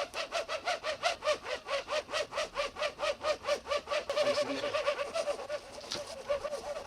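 Hand saw cutting through a tree trunk with rapid back-and-forth strokes, about five a second, each stroke giving a short squealing rasp. After about four seconds the strokes come quicker and run together into a steadier rasp.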